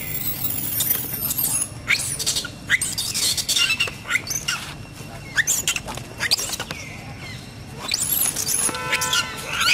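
Long-tailed macaques squealing: many short, shrill, high-pitched calls that slide up and down in pitch, coming every second or so. Near the end there is one lower, more tuneful call.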